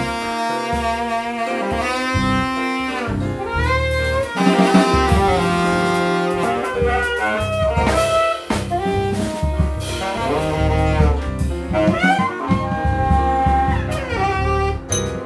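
Live jazz: a saxophone plays quick rising and falling runs over double bass and drum kit.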